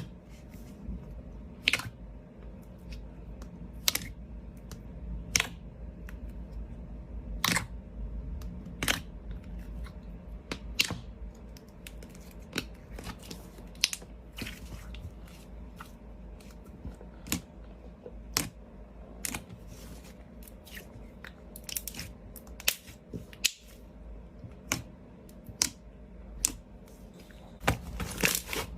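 Clear slime being squeezed and poked by hand, giving irregular sharp clicks and pops, roughly one a second and coming faster near the end, over a low rumble.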